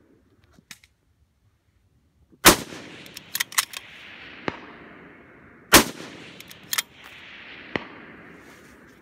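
Two loud rifle shots about three seconds apart, each trailing off in a long echo, with several fainter sharp cracks in between and after.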